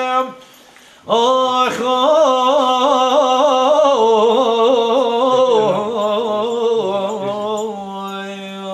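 A man singing unaccompanied in the Kurdish dengbêj style. A held note breaks off, and after a pause of about a second the voice returns with a fast, wavering, ornamented line, then settles into a long steady note near the end.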